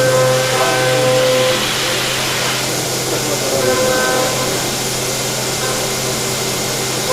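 CNC machining centre running: steady hiss and hum with a pitched whine that comes in for a second or so, twice, as the tool cuts.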